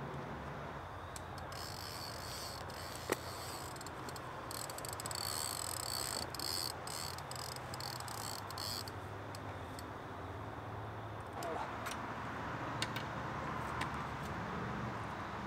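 Crickets and other night insects chirping in a high, rapidly pulsing chorus that stops after several seconds, over a low steady rumble. A single sharp click about three seconds in.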